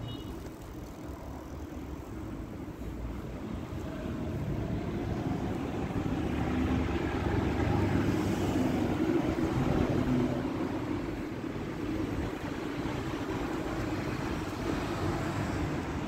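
Street traffic: a vehicle passes close by, growing louder over several seconds, loudest about eight to ten seconds in, then easing off.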